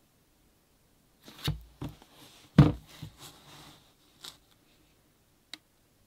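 Packaging being handled during an unboxing: a few knocks, the loudest about two and a half seconds in, with rustling of box and wrapping, then a couple of light clicks.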